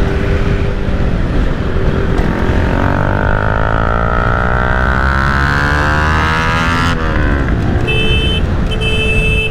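Motorcycle riding at speed with heavy wind rush over a low engine drone. The engine pitch climbs steadily from about three seconds in as it accelerates, then cuts off abruptly near seven seconds. Near the end a vehicle horn sounds in two short blasts.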